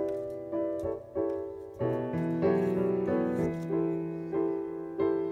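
Piano music: a steady run of separate notes, each striking and then fading.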